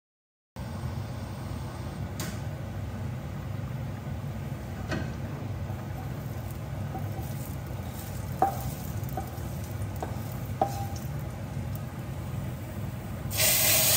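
Wooden spoon stirring a tadka of spices in hot oil in a small frying pan, with a few light knocks of the spoon on the pan over a steady low hum. Near the end a loud sizzle starts as the hot tempering is poured into the pot of dal.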